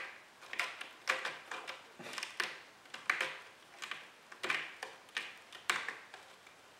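Maine Coon kitten raking its claws down a sisal-rope scratching post: a dozen or so short rasping scratches, about two a second, in uneven pairs and singles.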